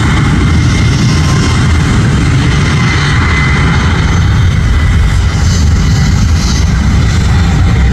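Airbus A321neo jet engines, Pratt & Whitney PW1100G geared turbofans, at takeoff thrust during the takeoff roll: a loud, steady deep rumble with a thin high whine over it.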